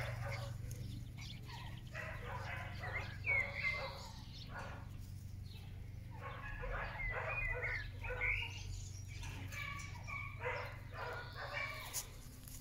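Rough collie puppies yapping and barking in play, in short high yelps that come in three bursts.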